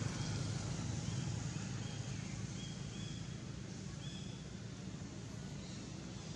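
Outdoor background noise: a steady low hum with a few faint, short, high chirps a couple of seconds in.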